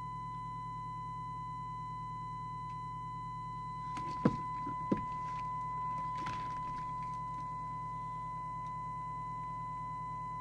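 Steady test tone from the Skiptech TI4000FM CB radio's loudspeaker: the signal generator's modulation demodulated by the receiver, with its FM detector just retuned. It sits over a low steady hum. About four seconds in come two sharp clicks, then a few seconds of paper rustling.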